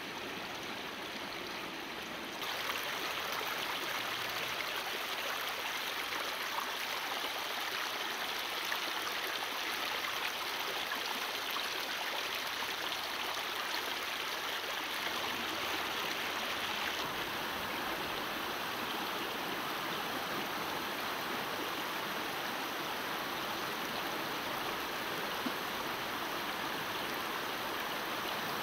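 Shallow river running over stones: a steady rush of water that gets louder about two and a half seconds in.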